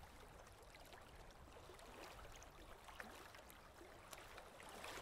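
Faint lapping of rippling water: a steady soft wash with small scattered ticks of splashing.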